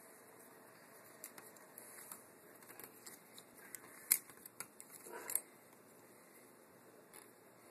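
Faint clicks and rattles of a plastic Totaline thermostat wall plate being handled and worked free of its wires, with a sharp click about four seconds in and a few more just after five seconds.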